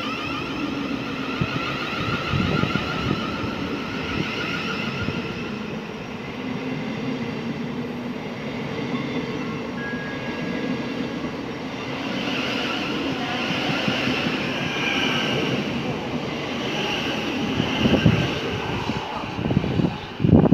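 Thameslink Class 700/1 electric multiple unit running alongside the platform: steady wheel-and-rail rumble with a faint whine from its traction equipment. There are a few heavy low thumps near the end.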